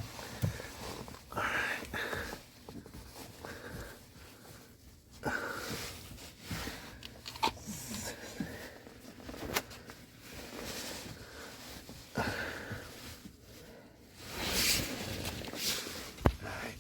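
Intermittent rubbing and rustling with small clicks and knocks as a slip-on pedal cover is worked by hand onto a truck's stock pedal.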